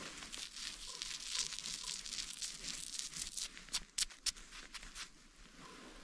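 Crisp crackling and crinkling close to the microphone, like gloves and gear being handled in hard frost, with three sharp clicks about four seconds in.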